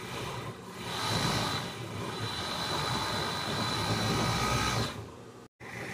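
Industrial overlock (serger) machine running at speed as fabric is fed through it, overlocking the edge of a skirt, with a steady high whine. It starts about a second in and stops shortly before the fifth second.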